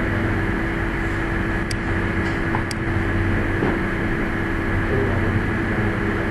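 Steady background hum with several constant tones, with two faint short clicks about two and three seconds in.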